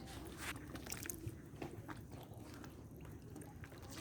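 Faint small water sounds, light drips and sloshing, with a few soft scattered clicks.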